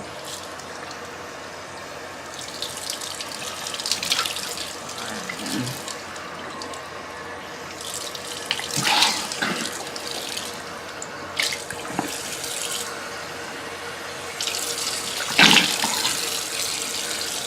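Water running steadily from a tap into a sink, with a few louder splashes about nine, twelve and fifteen seconds in.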